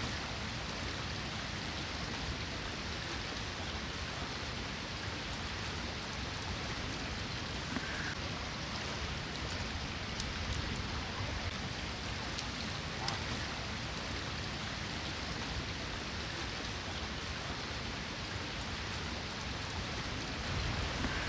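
Steady rush of water from a small, fast-flowing brook, with a few faint clicks.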